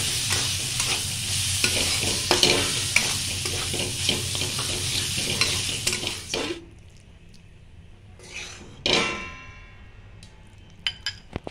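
Banana-flower curry frying in an aluminium kadai, a spatula stirring and scraping through it over a steady sizzle. The sizzling and stirring stop about two-thirds of the way through, leaving one short scrape and a few light clicks near the end.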